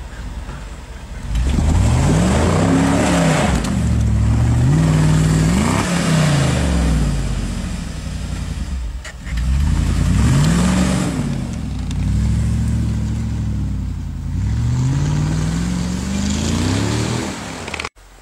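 Mercedes G500's V8 engine revved hard again and again as the 4x4 claws through deep snow ruts, the pitch climbing and dropping several times. The sound cuts off abruptly near the end.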